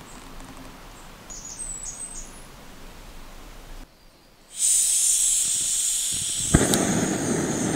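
Backpacking canister stove on an MSR gas canister: gas hisses loudly from the opened valve, then a click from the lighter about two-thirds of the way in, and the burner lights and runs with a steady rushing flame. Before that there is faint outdoor quiet with a few thin bird chirps.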